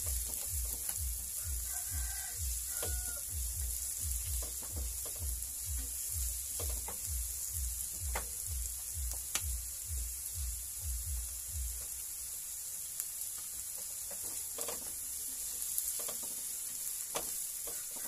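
Diced onions sizzling steadily as they sauté in butter in a nonstick frying pan, the early stage before they turn translucent, with a silicone spatula stirring and clicking against the pan now and then. A low regular pulse, about two to three beats a second, runs underneath until about two-thirds of the way through.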